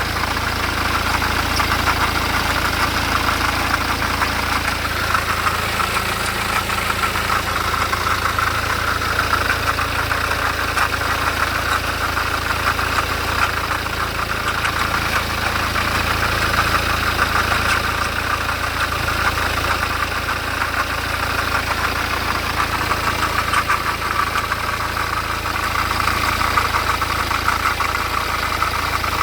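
BMW 318d's four-cylinder diesel engine idling steadily, making a sound its owner calls strange.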